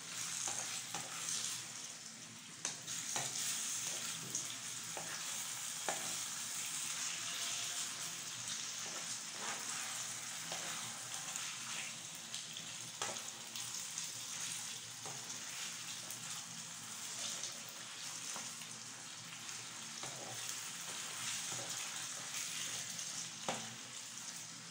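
Pieces of meat in a thick tomato sauce sizzling in a metal frying pan as a wooden spoon stirs them, with a scattering of short scrapes and knocks of the spoon against the pan.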